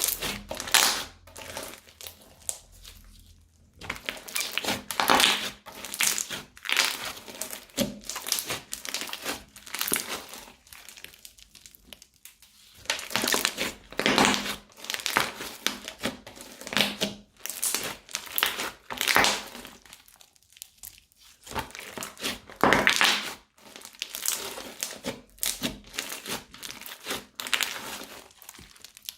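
Crunchy slime being worked by hand, giving off irregular crackling, crunching bursts in runs of a few seconds with brief pauses between them.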